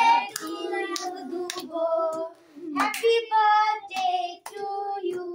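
A group of children, with a woman's voice among them, singing a birthday song together, with scattered hand claps.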